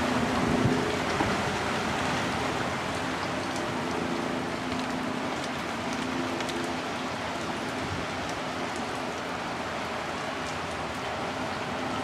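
Steady rain during a windstorm, a continuous hiss, with wind buffeting the microphone briefly in the first second.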